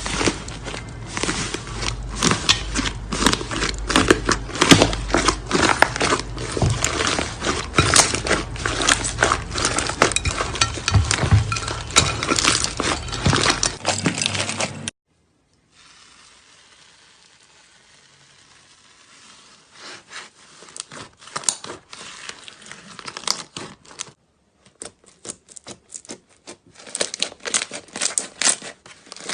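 Slime being squeezed and worked by hand, giving dense crackling and popping clicks. It cuts off abruptly about halfway through, then resumes in sparser bursts of crackles.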